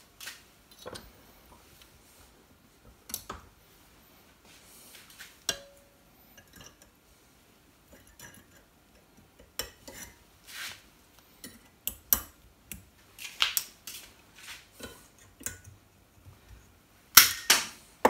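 Needle-nose pliers and small metal parts clicking and clinking on a workbench as they are handled. The clicks are scattered, growing busier in the second half, with the loudest pair near the end.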